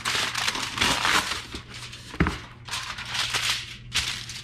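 Heavy-duty aluminum foil crinkling and crackling as a sheet is torn from the roll and folded and smoothed flat by hand, with one sharp thump about two seconds in.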